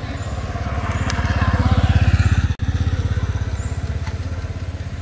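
Motor scooter engine idling with a steady, fast low pulse, while a louder rush of passing traffic swells and fades around the middle.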